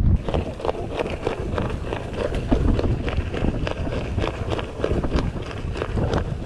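Mountain bike rolling fast downhill over a loose dirt and gravel track: tyres crunching on the stones, with a quick irregular rattle of the bike's parts over a low rumble.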